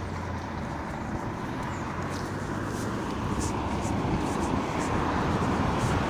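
Wind buffeting a handheld phone's microphone while walking, with rustling from handling and clothing. It grows louder about halfway through.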